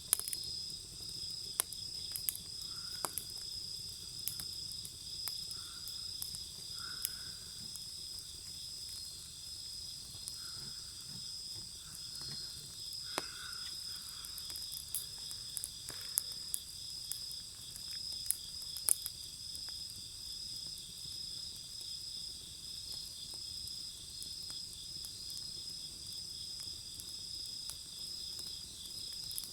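Wood bonfire crackling with scattered sharp pops, over a steady high-pitched chorus of chirping insects.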